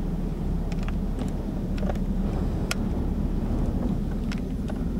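Dust-storm wind buffeting a car, heard from inside the cabin as a steady low rumble, with scattered sharp ticks of blown sand and grit striking the body and windshield.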